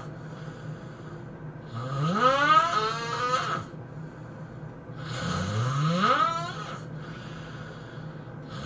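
A person snoring heavily: two long snores about three and a half seconds apart, each rising in pitch as it goes, with quieter breathing between them.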